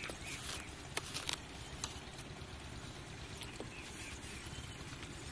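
A few light knocks and scrapes of a short-handled hoe working soil, then the suction hose being handled, over a steady low rumble.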